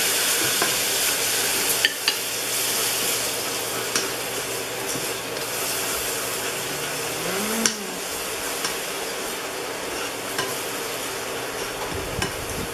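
Crushed garlic and black pepper sizzling in hot oil in a small saucepan, a steady hiss that eases slightly, while metal tongs stir and click against the pot a few times.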